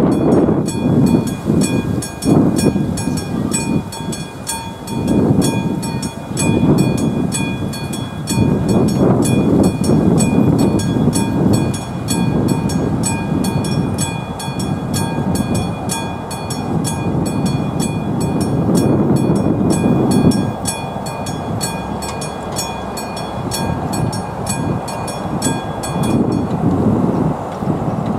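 AŽD 71 level-crossing warning bell, a classic striker bell, ringing in rapid, even strokes while the crossing warning is active and the barriers come down. It stops suddenly near the end, once the barriers are down. Underneath is an uneven, gusting low rumble.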